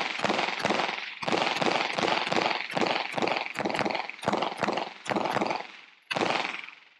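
A Glock 17 Gen 4 9mm pistol firing a fast string of shots, about three a second, with a short break near the end before one last shot.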